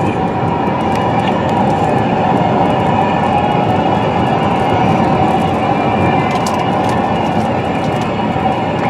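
Steady cabin noise of a car at highway speed: tyres on the pavement and wind over the body, with a few faint ticks about six seconds in.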